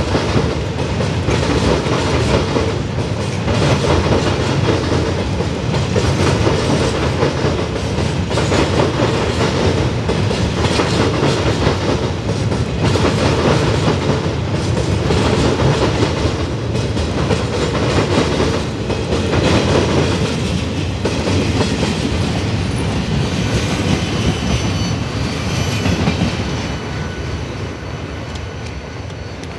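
Freight train boxcars rolling past: a steady rumble of steel wheels on rail with a regular clickety-clack over the rail joints, fading away over the last few seconds as the end of the train passes.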